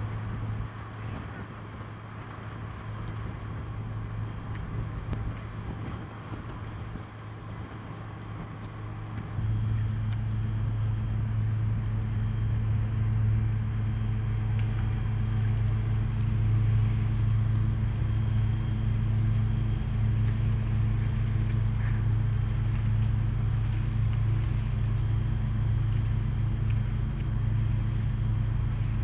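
Steady low drone of a small car ferry's diesel engine, a deep hum with a few overtones, louder and steadier from about nine seconds in.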